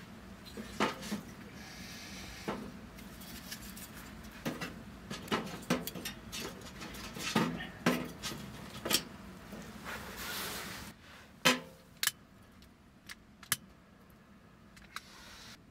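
Split kindling being placed into a small stainless-steel wood stove's firebox, the sticks knocking and clinking against the metal and each other in an irregular string. A few separate sharp clicks follow near the end.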